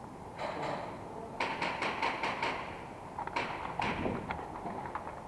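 Quick footsteps crunching on a gritty tiled floor, a run of about six steps at roughly five a second, then a few more scattered steps.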